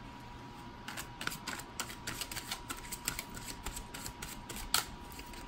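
A deck of tarot cards being shuffled by hand to draw a card: a run of quick, uneven card clicks, with one sharper snap near the end.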